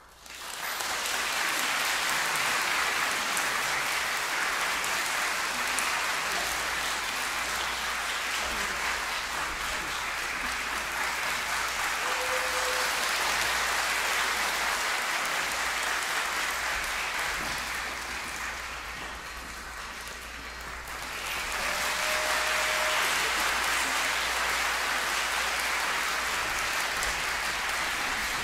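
Concert hall audience applauding, starting right as the final chord of the choir piece dies away. The applause eases off about two-thirds of the way through, then swells again.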